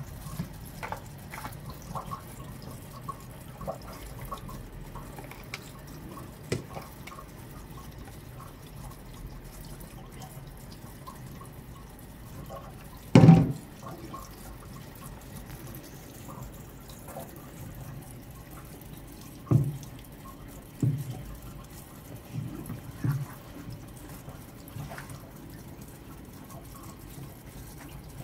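Water dripping and splashing during kitchen work, with scattered small clicks. There is one loud knock about 13 seconds in and a few softer knocks between about 20 and 23 seconds.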